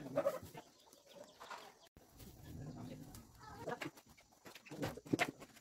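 Chickens clucking, with other birds calling, in short bursts near the start and again near the end.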